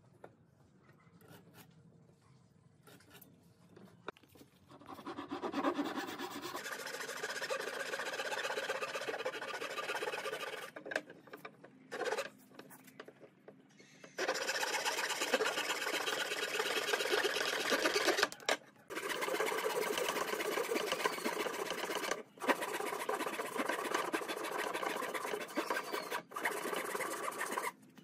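Hand saw with a wooden handle cutting through a thin wooden strip in quick, rapid strokes. The sawing starts about five seconds in and stops briefly a few times; before it there are only a few faint taps.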